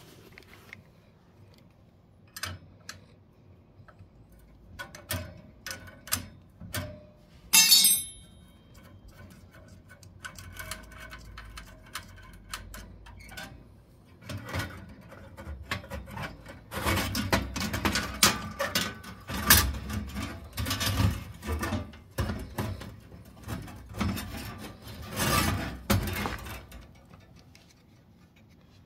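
Metal parts being handled inside a gas boiler's burner compartment: scattered clicks and knocks, one sharp clank about eight seconds in, then a long stretch of rattling and knocking from about halfway through, as the pilot and thermocouple are worked on.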